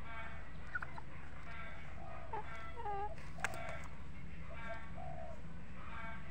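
Poultry calling: short calls repeat about once a second, with a few higher chirps near the middle. A sharp click comes about three and a half seconds in, over a steady low rumble.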